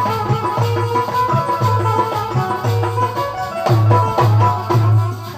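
Bundeli rai folk music playing between sung verses: deep drum strokes about once a second under a held, steady melodic line.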